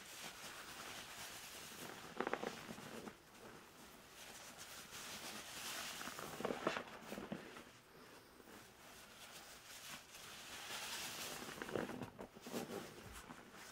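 Gloved hands squeezing a soaked grout sponge in a tub of thick suds, with crunchy, crackling foam and squelching. It comes in three slow squeezes a few seconds apart.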